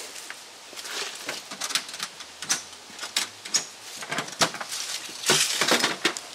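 Irregular light clicks, taps and scuffs of close-up handling, coming thicker and louder about five seconds in.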